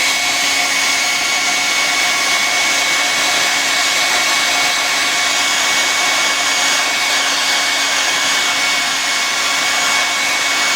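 Hot air gun running steadily, its fan blowing a constant hiss with a faint steady whine, heating heat-shrink tubing over a soldered wire joint.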